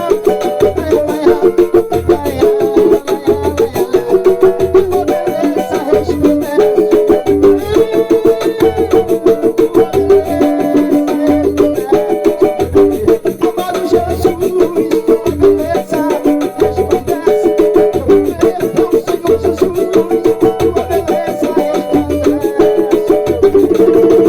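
Banjo picked in a fast run of plucked notes over a steady low beat about once a second.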